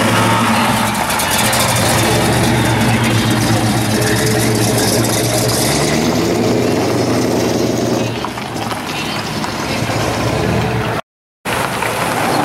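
Engine of a supercharged, blower-scooped Corvette hot rod running with a deep, steady rumble as it rolls past at walking pace. It rises briefly in pitch about six seconds in, then grows fainter. Near the end a hard cut brings in another car's engine running.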